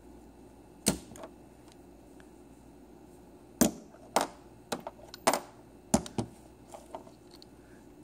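A series of sharp metallic clicks and taps: a steel bolt, a paper clip and a safety pin snapping onto the face of a powered 12-volt electromagnetic door lock as it is handled over them. The first click comes about a second in, and most of the rest cluster in the middle.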